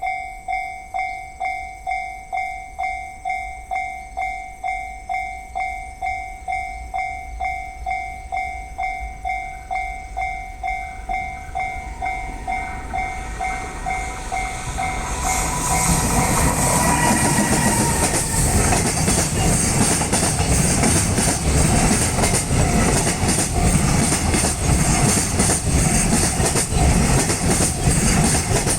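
Japanese level-crossing warning bell ringing steadily at about one and a half strikes a second. About 15 seconds in, a JR Sanyō Main Line train arrives and passes through the crossing; its louder running noise drowns out the bell.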